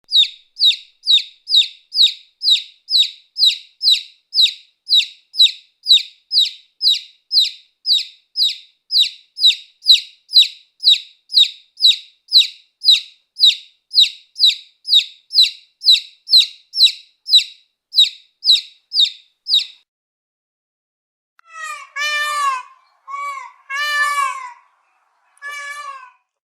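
An animal's short, high call repeated steadily about twice a second for some twenty seconds, then, after a pause, four different, lower calls.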